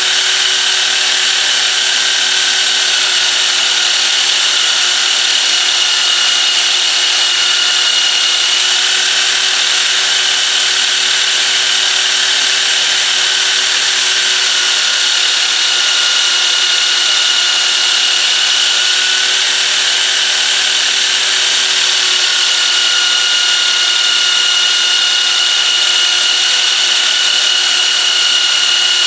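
Small bench belt sander running steadily while a steel knife blade made from a saw blade is ground against the belt: a loud, even hiss of abrasive on steel over the motor's whine, which shifts slightly in pitch now and then.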